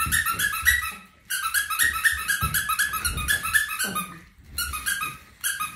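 A squeaky dog toy squeezed over and over, about seven high squeaks a second, in quick runs broken by short pauses about one second and four seconds in.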